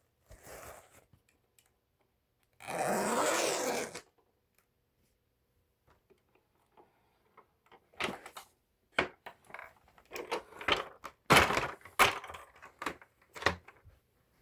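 Handling noises on a Hoover Elite vacuum cleaner: a short rushing burst, then a quiet stretch, then a quick string of sharp clicks and knocks.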